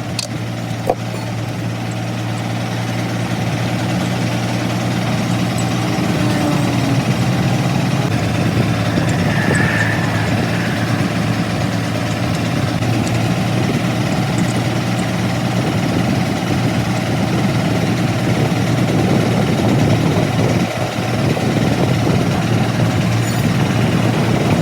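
Heavy machinery running steadily with a low, even drone, and a brief higher sound near the middle.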